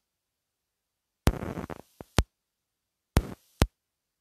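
The recording drops out: dead digital silence broken by sharp clicks, five in all, two of them opening short snatches of sound that cut off abruptly. These are glitches or edit cuts in the audio track.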